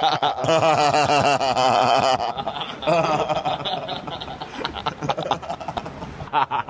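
Close-up laughter: people giggling and cackling in quick repeated bursts, hardest in the first two seconds, with another burst about three seconds in, then trailing off softer.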